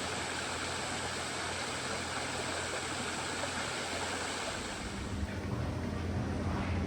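Steady rush of falling, splashing water. A low rumble comes in about two-thirds of the way through.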